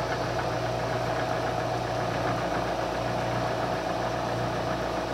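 Vertical milling machine running steadily, its motor and spindle giving an even hum with a steady vibration.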